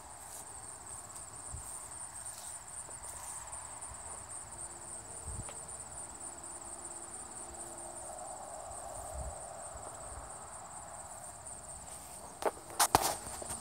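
Insects chirping steadily in a fast, even high trill, with a few sharp clicks near the end.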